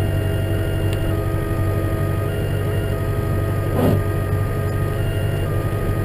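Tractor engine running steadily under load inside the cab while pushing a snow plough, with whining tones that come and go over the low rumble. A short rushing noise swells and fades about four seconds in.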